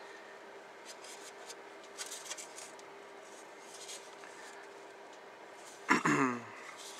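Plastic model kit parts sealed in clear plastic bags being handled, giving soft crinkles and light clicks. About six seconds in, a short voiced 'hmm' with falling pitch stands out as the loudest sound.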